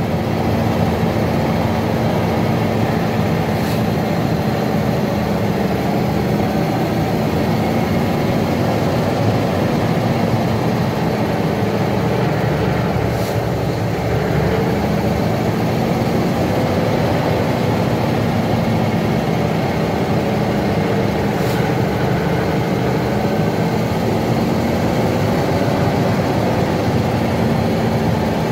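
Heavy truck's diesel engine running steadily, heard from inside the cab as the loaded truck descends a steep mountain grade; the engine note dips briefly about halfway through, then steadies again.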